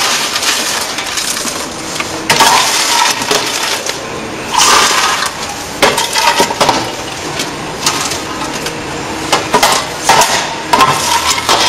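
Popped popcorn being scooped and swept by hand across a popcorn machine's stainless-steel cabinet floor into paper popcorn bags, in about five short rustling, scraping bursts.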